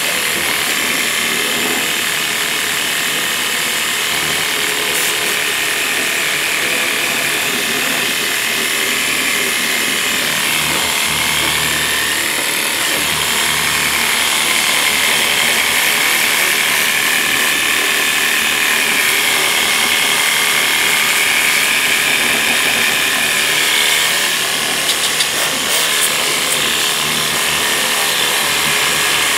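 Worx Hydroshot cordless pressure washer running steadily: its pump motor whirs, with a pitch that wavers a little, under the hiss of the water jet spraying the engine bay. It stutters briefly a few times near the end.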